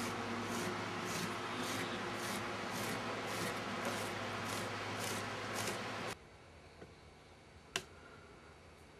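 A machine running with a steady hum and a rhythmic scrape about twice a second, cutting off suddenly about six seconds in. One sharp click follows near the end.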